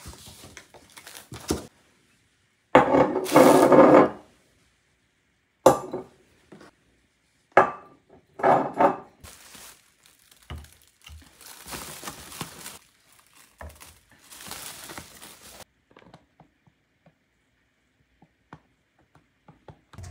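A cardboard delivery box being unpacked by hand: a loud scraping rip of the box opening, then sharp knocks of bottles being taken out and set down, and softer rustling of packing material.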